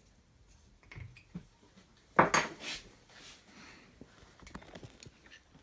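Metal clinks and knocks from handling metal parts or tools, with one sharp clank about two seconds in and lighter clicks around it.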